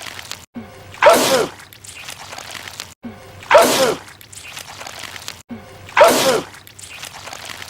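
A man sneezing loudly, the same sneeze clip looped three times about two and a half seconds apart. Each sneeze has a falling pitch and a hissing spray, followed by a short break before the next repeat.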